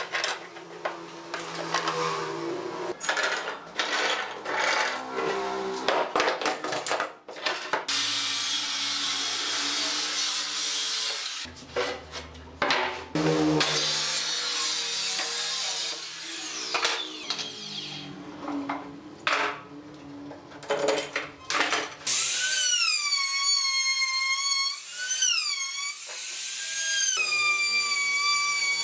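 Workshop power-tool sounds: a handheld circular saw cutting across a glued-up pine pallet-board panel, with knocks and clatter of the work being handled. From about two-thirds in, a trim router whines, its pitch dipping and recovering several times as it cuts the panel's edge profile.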